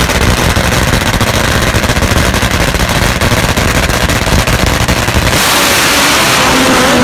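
Drag-racing motorcycle engines running loud with a rapid, crackling note at the starting line. About five and a half seconds in they launch, and the sound smooths into a steady rush with a rising engine note as the bikes pull away.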